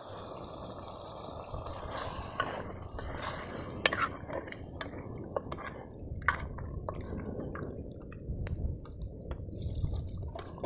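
Chicken curry cooking in a pot over a small wood fire as it is stirred with a spoon, with scattered sharp clicks and taps throughout and one louder knock about four seconds in.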